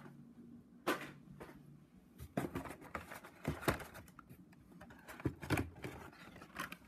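Carded Hot Wheels cars in plastic blister packs being handled and set down: a scatter of short plastic crackles and light taps, the strongest about a second in and around the middle.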